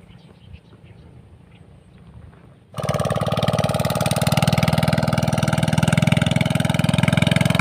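A faint low hum, then about three seconds in a small engine is suddenly loud and runs steadily with a fast, even pulse.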